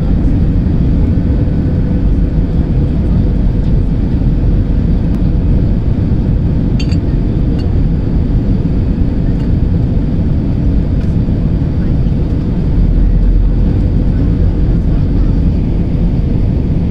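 Steady cabin noise of a jet airliner on its landing approach, heard from a window seat beside the engine: a loud, even low rumble of engine and airflow with a faint steady hum over it.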